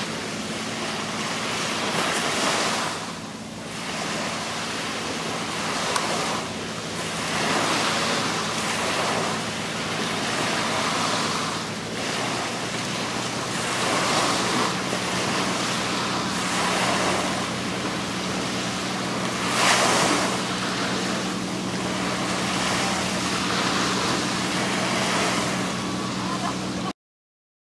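Small waves washing and wind on the microphone, swelling and fading every couple of seconds, over a steady low engine hum. The sound cuts off abruptly near the end.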